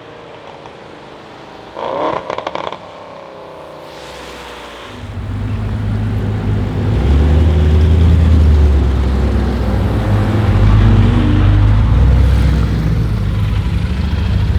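Audi RS6 C7's twin-turbo V8 through a decatted Milltek exhaust: a short burst of rapid crackles about two seconds in, then a deep exhaust drone that builds from about five seconds and stays loud.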